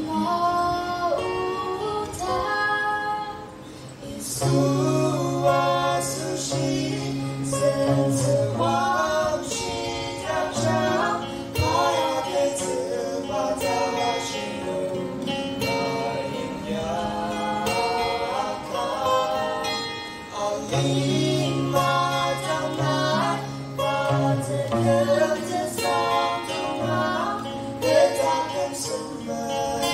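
A gospel song performed live: an acoustic guitar accompanying singing, heard through a PA.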